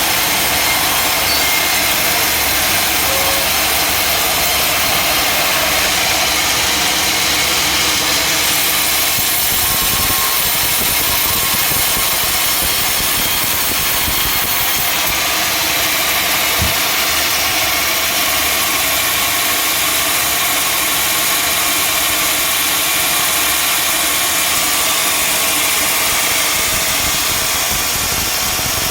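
Sawmill machinery running steadily: an even, loud engine-and-saw noise with most of its energy in the upper range, and a brief knock about 17 seconds in.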